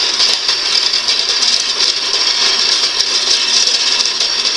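A small, cheap power saw running steadily as it cuts through metal. The sound is even and unbroken, with a high, hissing edge.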